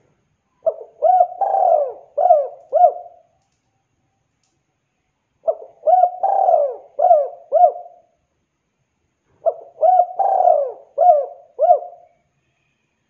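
Spotted dove (tekukur) cooing: three call phrases, each a quick run of about five hooked coos, with a pause of a couple of seconds between phrases.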